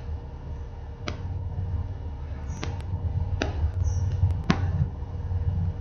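Low, uneven rumble of wind buffeting the microphone, with a few sharp clicks and a faint steady high whine behind it.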